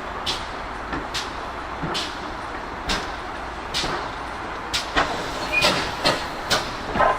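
GWR 57xx class pannier tank steam locomotive running with a train: a steady hiss with regular sharp beats, about one a second, coming closer together near the end.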